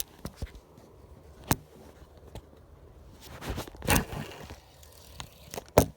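Fishing rod and spinning reel handled during a cast: scattered sharp clicks, a brief rushing swish a little over three seconds in, and a loud click near the end.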